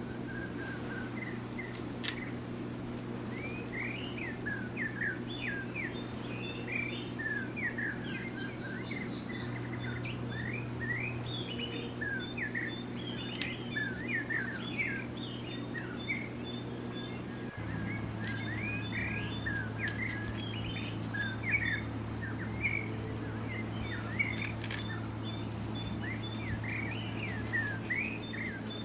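Small birds chirping and twittering again and again, over a steady low hum.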